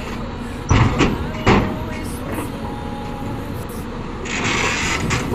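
Hyundai 220L crawler excavator on a lowbed trailer deck, its diesel engine running steadily, with two loud clanks about a second in and a burst of hissing near the end.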